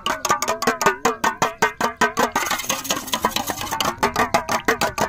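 Metal spoon beating raw eggs in a stainless-steel bowl: quick, even strokes, about six a second, each clink setting the bowl ringing.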